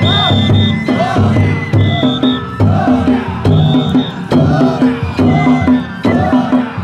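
Danjiri festival music played on the moving float: drums, hand gongs and a high flute going round in a steady rhythm of about one cycle a second, with the pulling crowd's chanting mixed in.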